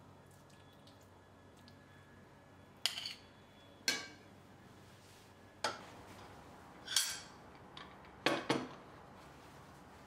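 Dishes and glassware clinking as they are handled and set down on a table: about six sharp, ringing clinks at irregular intervals, two in quick succession near the end.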